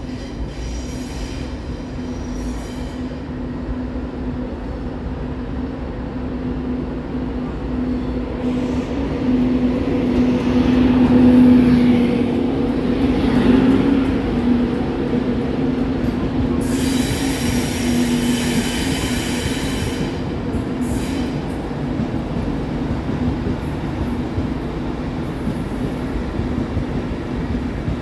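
A Class 91 electric locomotive and its coaches pass slowly at close range with a steady electric hum, loudest as the locomotive goes by about eleven to fourteen seconds in. A high wheel squeal follows for about three seconds.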